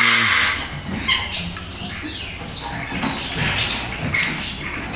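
A bird calling during hand-feeding: a loud raspy call right at the start, then scattered short chirps and squawks.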